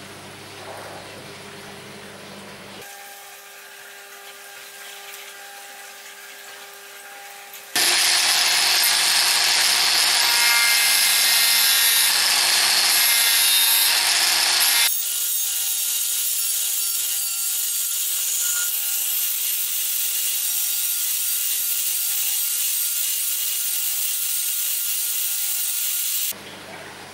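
Small Proxxon right-angle rotary tool with a disc, its motor running with a steady whine from about three seconds in. From about eight seconds it grinds loudly on the edge of a paper template for about seven seconds, then runs on with lighter grinding until it stops near the end.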